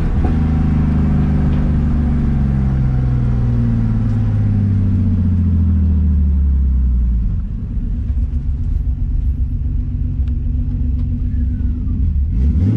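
Car engine while driving, its pitch falling steadily for about seven seconds as the revs drop, then running low and uneven, and rising again near the end as it pulls.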